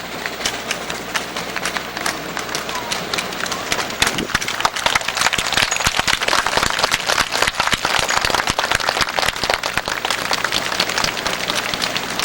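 Audience applauding, swelling about four seconds in and thinning out near the end, over crowd chatter.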